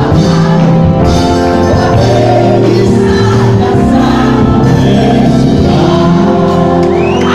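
Live gospel choir singing with amplified keyboards and drums, loud and steady. A high wavering, siren-like sound rises over the music near the end.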